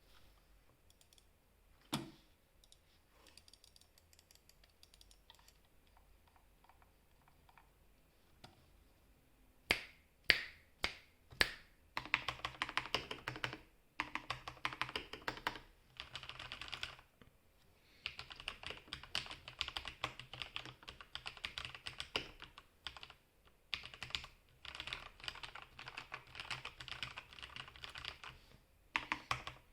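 Typing on a Corsair Strafe RGB MK2 mechanical keyboard with lubed Cherry MX Red linear switches, lubed stabilizers and added soundproofing. A few faint key presses come first, then several loud single strikes about ten seconds in, then fast continuous typing in bursts with brief pauses.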